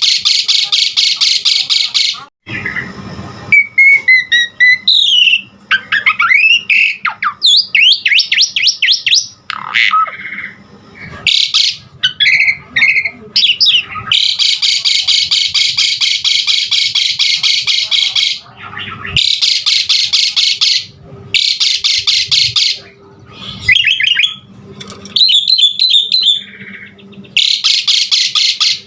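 Pied starling (jalak suren) singing a long, varied song: fast buzzy rattling runs, some held for several seconds, broken up by whistled notes and gliding calls.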